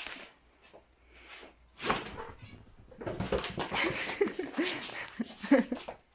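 A pet animal vocalising in a string of short calls that rise and fall in pitch, mostly in the second half, after a few short sharp noises.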